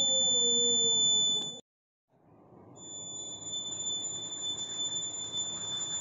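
Piezo buzzer on a homemade toy car sounding a steady, high-pitched continuous beep. It cuts off suddenly for about a second, then comes back on.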